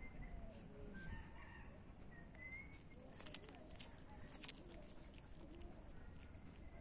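A cat biting and chewing a raw fish: a run of short, sharp clicks between about three and four and a half seconds in. Faint bird calls sound in the background.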